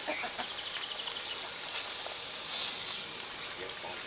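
Water hissing as it sprays from a garden hose spray attachment onto concrete, with a louder burst of spray about two and a half seconds in.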